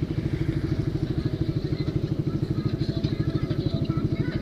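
Honda CB150R motorcycle's single-cylinder engine with a racing exhaust, running at low, steady revs with an even, rapid exhaust pulse.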